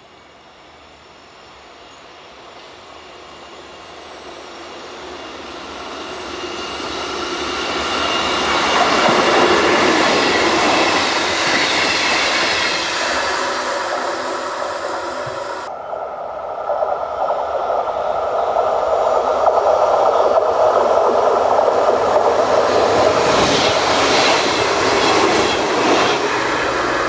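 Narrow-gauge electric commuter train running on its rails: wheel and rail noise builds steadily to a peak about nine seconds in. The sound cuts off abruptly about sixteen seconds in and picks up again as a loud, steady train run, with a few sharp clicks of wheels over rail joints near the end.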